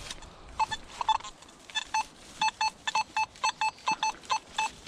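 Metal detector beeping on a buried coin target: short beeps of the same pitch, starting about half a second in and repeating about three times a second.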